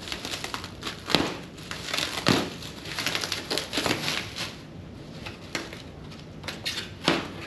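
Packaging being handled and unwrapped: irregular crinkling and rustling with a few louder crackles.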